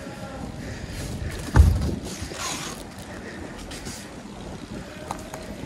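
Wind on the microphone and rolling rumble of a bicycle riding along a paved street, with a single hard thump about a second and a half in.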